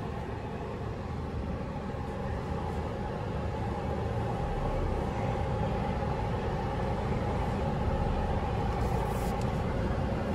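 Ford Ranger 2.2 turbo diesel engine running steadily, heard from inside the cab as the pickup drives slowly along a rough dirt track, growing gradually louder.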